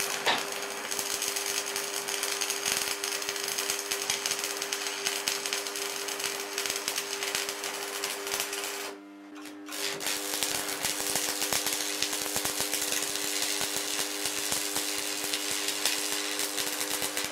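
Stick-welding arc crackling and sizzling as a rod burns a bead on thick steel, over a steady hum. The arc stops briefly about nine seconds in, then is struck again and runs on.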